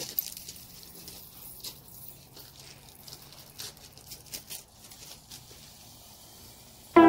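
Faint outdoor ambience with scattered light clicks and rustles, then music starts right at the very end.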